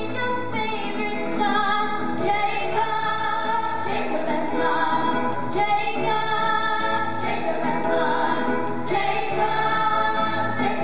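An ensemble of voices singing together in a stage musical number, over instrumental accompaniment.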